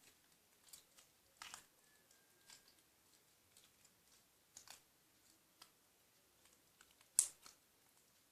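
Clear homemade slime being kneaded and stretched by hand: faint, scattered sticky clicks and squelches, with one sharper pop about seven seconds in.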